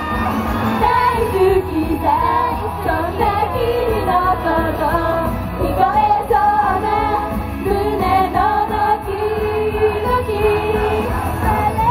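Japanese idol pop song performed live: a group of young female singers singing together into microphones over amplified music with heavy bass.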